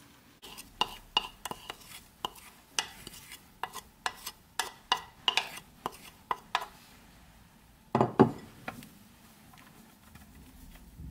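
Wooden spoon scraping and tapping against a ceramic bowl in a quick series of clicks as the last of the egg batter is scraped out, followed about eight seconds in by a few heavier knocks.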